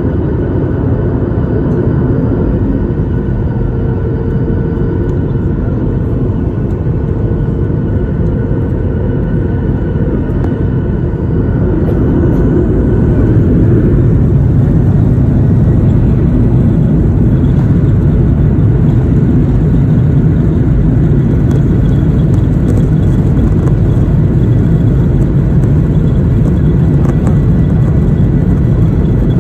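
A Boeing 737-800's CFM56-7B turbofan engines heard from inside the cabin. They run steadily at low power, then spool up to takeoff thrust about twelve seconds in and stay loud and steady through the takeoff roll.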